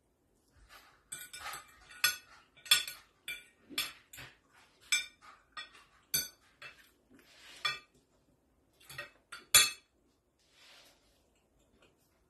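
A metal fork and knife clinking and scraping on a ceramic plate while eating. The taps come irregularly, and a few sharper ones ring briefly.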